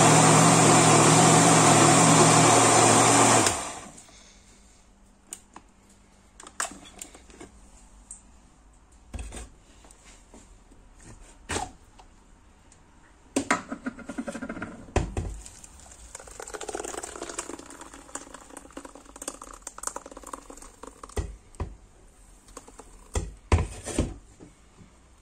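Countertop blender running steadily on a jar of carrot, peach and ginger juice, cutting off about three and a half seconds in. After it, scattered light knocks and clicks, with a soft pouring and scraping sound in the middle stretch as the juice is strained through a mesh sieve into a bowl.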